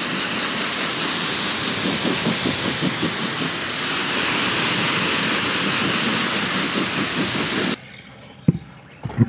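A jet of water from a spray wand rinsing wheel and tire cleaner off a mud-caked all-terrain tire and wheel: a steady, loud hiss with the splatter of water on rubber. It cuts off sharply near the end, followed by a single short knock.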